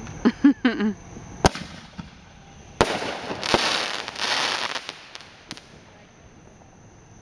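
Aerial fireworks: two sharp bangs about a second and a half apart, then a dense burst of crackling from the exploding shells that dies away with a few last pops.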